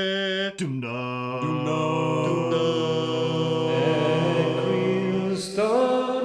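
Several men singing long, held wordless notes in harmony, chant-like. The voices join one after another to build a sustained chord, which shifts near the end.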